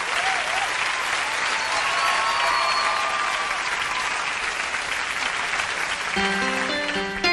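Audience applause with faint cheering, then a piano starts playing a melody about six seconds in.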